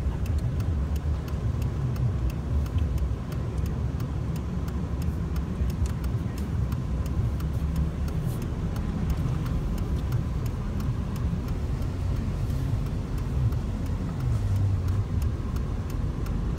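Steady low rumble of a car's engine and tyres, heard from inside the cabin while driving slowly, with light scattered ticking over it.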